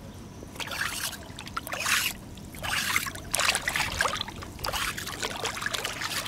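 Shallow seawater sloshing and splashing as a gloved hand sweeps through it and boots wade, in several irregular bursts.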